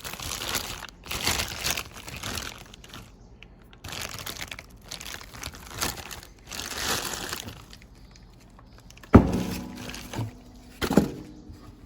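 Packaging rustling and crinkling as lathe chuck parts are unwrapped by hand, then a sharp hard clunk that rings briefly about nine seconds in, and a smaller knock near the end as a part is set down.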